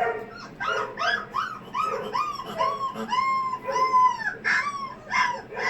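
Boerboel puppy howling in a rapid series of high, arching yelps. The calls draw out into longer howls midway, then shorten again.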